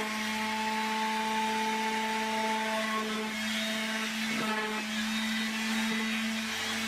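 Electric power tool motor running at a steady speed with a whining hum, with a faint click about four and a half seconds in; near the end it is switched off and its pitch falls as it winds down.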